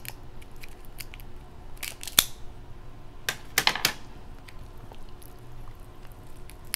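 Crab leg shells being cracked and snapped apart by hand: a run of small clicks, one sharp crack about two seconds in, and a quick cluster of cracks around three and a half seconds.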